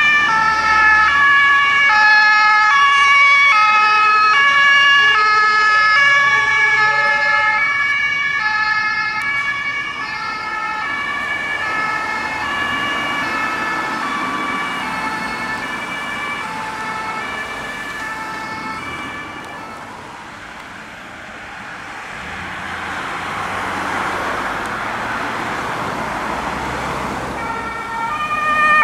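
German emergency-vehicle two-tone sirens (Martinshorn), more than one sounding at once, alternating between a high and a low note; they fade away over the first half. In the second half the rushing road noise of a passing vehicle swells, and a siren comes back loud right at the end.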